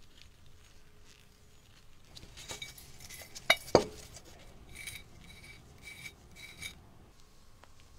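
Work on an antique teapot: rubbing and scraping, with two sharp knocks near the middle, then a run of short scraping strokes, each with a ringing note.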